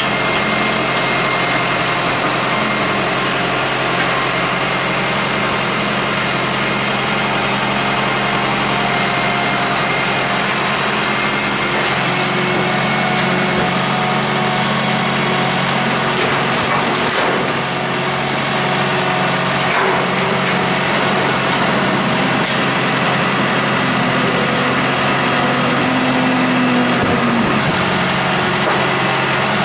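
Rear-loading garbage truck's engine running steadily while its hydraulic bin lifter raises and tips a wheeled bin into the hopper, the engine note thickening for several seconds in the middle as the lifter works. A couple of short metal knocks come partway through.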